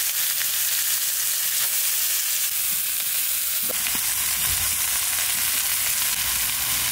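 Freshly added shredded cabbage sizzling steadily in hot oil in a wok.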